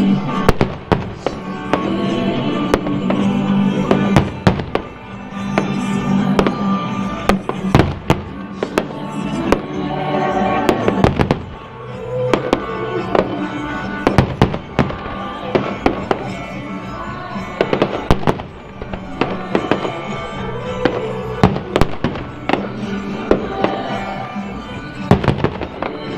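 Fireworks bursting in many sharp, irregular bangs, some in quick clusters, over music playing throughout.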